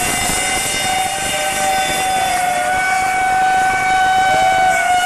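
Steam locomotive whistle blowing one long steady note over the noise of passing steam locomotives, with a second whistle sliding up in pitch to join it about four seconds in.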